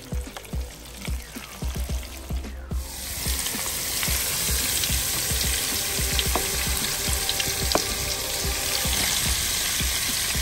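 Chicken wings deep-frying in hot oil in a countertop fryer: steady sizzling and bubbling, which becomes suddenly louder and fuller about two and a half seconds in. Low thumps sound underneath.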